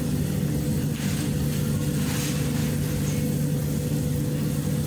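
Beef in broth boiling in a steel pot on a gas stove, over a steady low hum.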